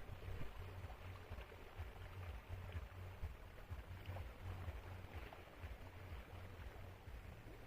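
Wind buffeting the microphone in an uneven low rumble, over a faint hiss of sea water.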